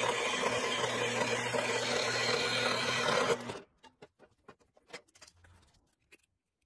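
Horizontal metal-cutting band saw running through steel plate, a steady motor hum and blade noise that cuts off abruptly about three and a half seconds in as the cut finishes. A few light clicks and knocks follow as the cut steel pieces are handled.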